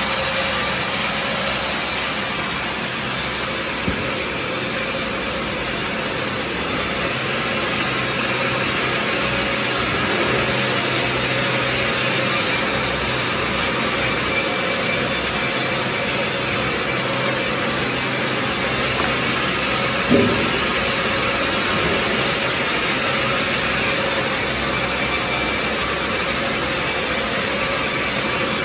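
Large band sawmill running, its blade cutting lengthwise through a log with a steady, even noise and a constant tone. A sharp knock comes about twenty seconds in and a smaller one two seconds later.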